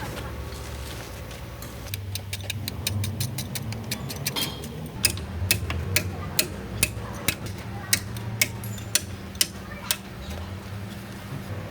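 A run of sharp clicks or knocks, about two a second, over a low steady hum; the clicks stop near the end.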